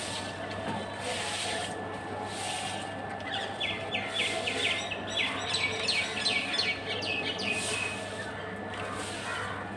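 Bundle broom sweeping a wet, muddy floor in soft swishing strokes about once a second. From about three to eight seconds in, a small bird gives a rapid run of short, high chirps over it.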